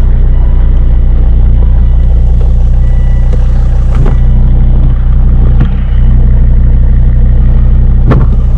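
A Volvo XC90's engine idling steadily just after being started, with a few light knocks about four, five and a half, and eight seconds in.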